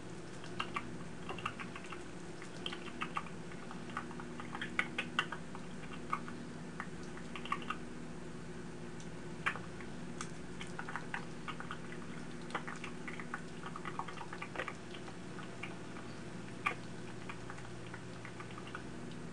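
Rapid, irregular small clicks and crunches of a person nibbling at something held up to the mouth, over a steady low hum.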